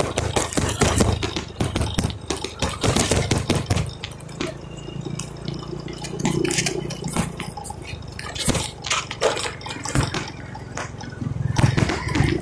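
Motorcycle ride: a low engine hum under a steady crackle of taps and rustling on the microphone, the engine dropping away between about four and eleven seconds in and picking up again near the end.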